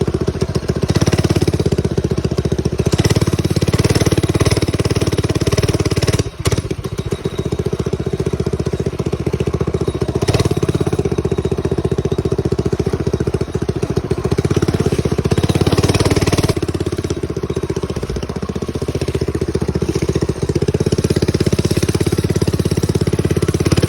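Mini bike's small engine running while being ridden, its pitch and loudness rising and falling with the throttle, with a brief dip about six seconds in.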